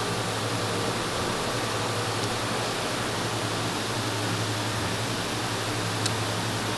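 Steady kitchen background noise: an even hiss over a low hum, with a faint click about six seconds in.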